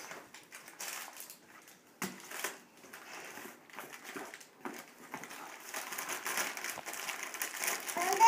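Gift packaging being handled: crinkling and rustling of wrappers and a cardboard box, with small irregular taps and knocks, the crinkling thicker in the last few seconds. A loud high rising cry starts right at the end.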